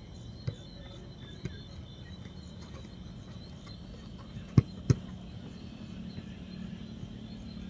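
Sharp thuds of a football being struck: two faint ones early, then two loud ones in quick succession about four and a half seconds in. A steady chirring of crickets runs underneath.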